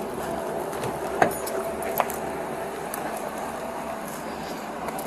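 Steady hum of idling vehicles, with a faint steady tone that fades about four seconds in. Two sharp clicks come about one and two seconds in.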